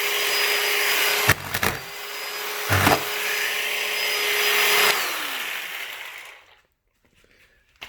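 Chainsaw running at a steady speed while cutting into a cardboard box, with a couple of knocks as the bar bumps the box. About five seconds in it is let off and winds down, the whine falling in pitch until it stops.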